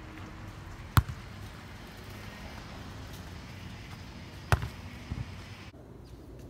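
Volleyball struck by players' hands and arms: two sharp smacks about three and a half seconds apart, the second followed by a couple of softer knocks, over a steady outdoor hiss.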